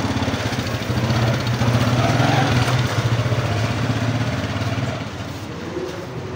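A small engine running with a steady low chug, loudest about two seconds in and fading about five seconds in.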